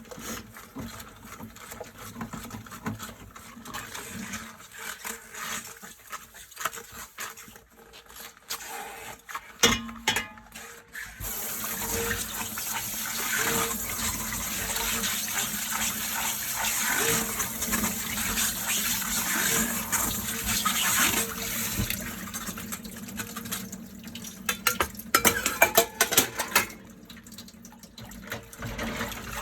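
Dishes being washed by hand at a kitchen sink: scattered clinks and rubbing at first, then the tap runs steadily for about twelve seconds from about eleven seconds in as things are rinsed. A quick run of dish clatter follows near the end.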